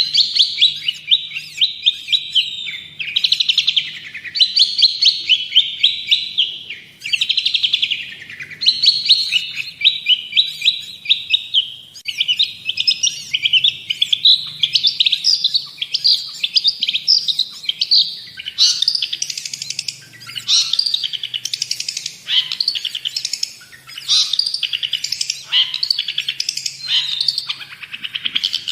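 Long-tailed shrike (cendet) singing energetically without pause: rapid, scratchy chattering trills in phrases of a few seconds. The phrases grow more varied, with quick falling notes, in the second half.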